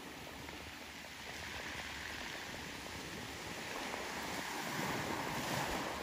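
Small sea waves washing onto a cobble beach, a steady hiss of surf that swells louder a few seconds in and eases near the end.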